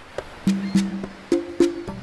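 Background music: short plucked-string notes, each starting with a sharp percussive click, in a steady rhythm of about two to three hits a second.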